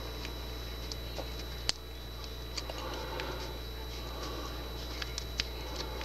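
Hook pick working the pin stack of an old Squire pin-tumbler padlock under tension: scattered faint metallic ticks and clicks, with one sharper click a little under two seconds in.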